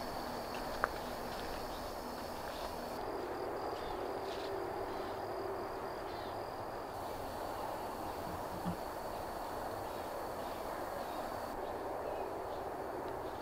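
Outdoor background ambience: a steady, even wash of noise with a continuous high insect trill over it, and a single faint click about a second in.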